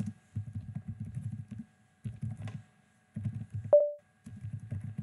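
Typing on a computer keyboard in quick bursts of keystrokes with short pauses between them. A brief beep, the loudest sound, comes about two-thirds of the way through.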